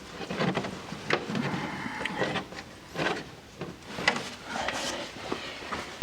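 Scattered light clicks, taps and rustling from hands handling small metal screws and parts during fitting work.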